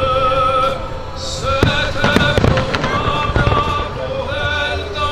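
Fireworks bursting in scattered bangs and crackles over a song with a held, wavering singing voice.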